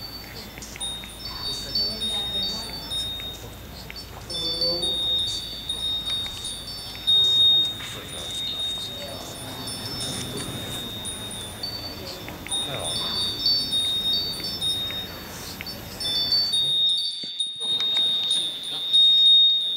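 High, tinkling chime tones: many short ringing notes overlapping and repeating over a faint low murmur. The sound breaks off briefly near the end, then resumes.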